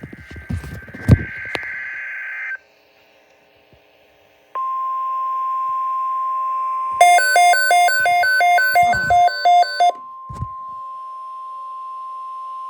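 NOAA Weather Radio Emergency Alert System broadcast: the end of a warbling digital data burst, a short silence, then the long, steady, single-pitch 1050 Hz warning alarm tone that heralds the tornado watch message. For about three seconds in the middle, a louder, rapidly pulsing electronic beeping sounds over the steady tone.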